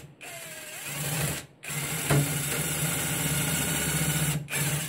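Cordless impact driver driving a fastener into wood. It runs in bursts: a short spin-up with a rising pitch, a brief stop, about three seconds of steady running, then a short break and it starts again near the end.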